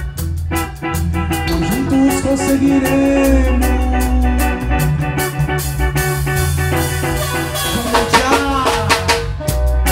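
A live reggae band playing: steady bass line, drum kit with cymbals, and electric guitar. Sliding, bending notes come in a couple of seconds in and again near the end.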